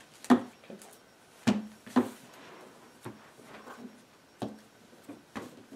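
Sleeved trading cards and a deck being set down and tapped on a wooden tabletop: a handful of separate sharp knocks, the loudest about a third of a second in, with more around one and a half, two, four and a half and five and a half seconds in.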